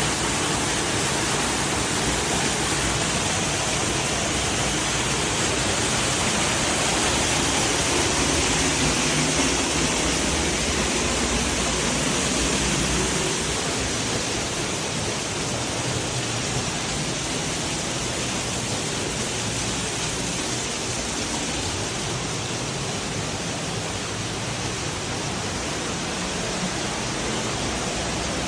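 Waterfall: a steady rush of falling water, easing slightly about halfway through.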